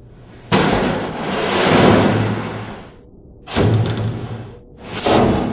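Full 5-gallon plastic water jugs being set down on an aluminium conveyor track and shoved against the row of jugs ahead. There are three heavy thumps about two seconds apart, each followed by a noisy scraping rumble, the first lasting over two seconds.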